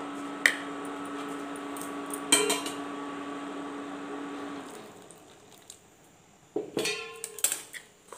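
A steel spoon clinking and scraping against a stainless steel bowl while semolina and atta flour are mixed with hot water, with a quicker run of clatter and ringing near the end. A steady hum sits under the first half and fades out about halfway through.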